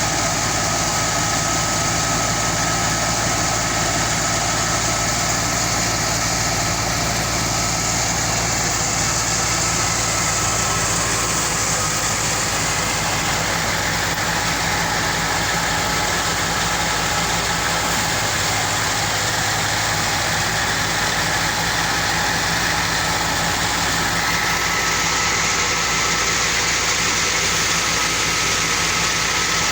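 Wheat thresher running steadily under power: a continuous mechanical drone with a low engine hum and a faint steady whine.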